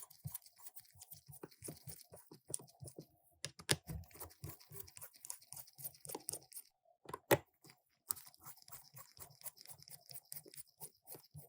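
Small Phillips screwdriver working out the screws of a Samsung Galaxy A50 smartphone: a dense, irregular run of small clicks and scratches, with a few sharper clicks about three and a half and seven seconds in.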